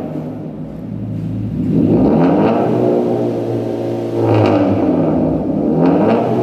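Straight-piped 2008–2011 Ford Focus four-cylinder engine revved twice from idle. The revs climb about two seconds in and fall back slowly, then jump sharply just after four seconds and drop again. A few crackles come from the open exhaust as the revs come down.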